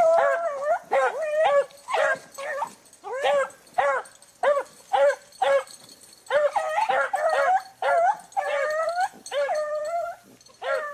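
Beagles baying on a rabbit's scent trail: a run of quick, short bays mixed with longer drawn-out bawls, the sign of hounds running a rabbit.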